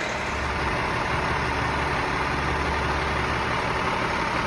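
International 4300 box truck's diesel engine idling, a steady low hum.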